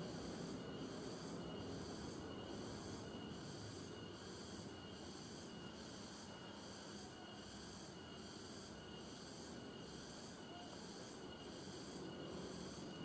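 Insects chirping in a steady high-pitched pulse, about two chirps a second, over a low background rumble.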